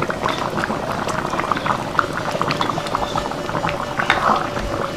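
Thick coconut-milk curry with bitter gourd and beef hump fat simmering in a steel wok, its bubbles popping in a steady stream of small clicks.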